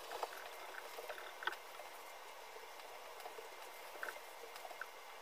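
Faint rubbing of a microfiber towel wiped over a car's painted hood, buffing off ceramic coating, with a few small crackling ticks scattered through it.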